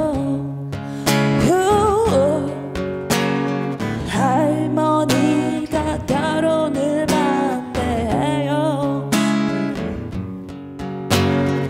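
A woman singing a blues song in Korean to her own guitar, strumming chords under sung lines that bend in pitch, with a short softer passage near the end.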